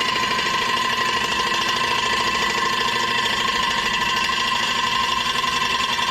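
A machine running steadily, with a fast even pulsing rattle over a constant whine.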